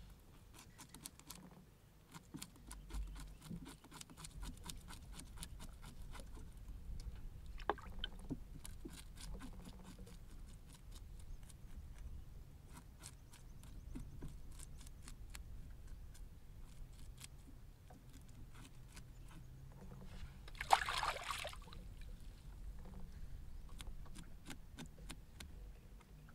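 A knife scraping scales off a small fish on a wooden board, in many short, quick strokes. About three-quarters of the way through comes one louder, harsher noise lasting about a second.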